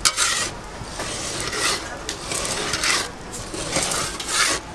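Metal pizza peel scraping repeatedly across the stone floor of a hot pizza oven as the pizza is moved and turned, in short strokes about a second apart.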